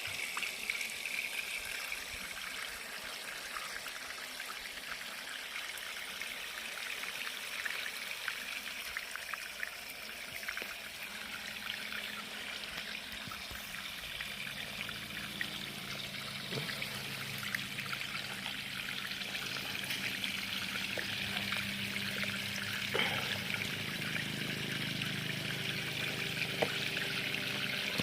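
Running water pouring and trickling steadily over stones being washed, with scattered small clicks. About halfway through a low steady hum joins in.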